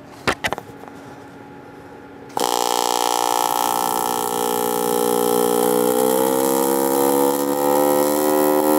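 A couple of clicks, then an AC TIG welding arc on aluminum strikes up suddenly about two seconds in with a loud, steady buzz. From about halfway through, the buzz slowly rises in pitch as the machine's AC frequency is turned up from about 60 Hz toward 200–250 Hz, which focuses the arc.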